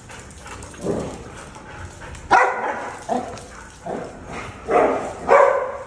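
A husky and a smaller dog barking during rough play-chasing: about six short barks, irregularly spaced roughly a second apart.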